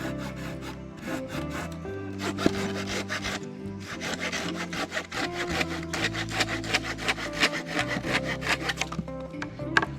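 Hand saw cutting through wood in quick, regular back-and-forth strokes, several a second, pausing briefly near the middle, over background music.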